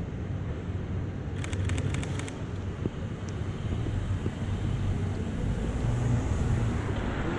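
Sony A7III camera shutter clicking several times in quick succession about a second and a half in, over a steady low background rumble.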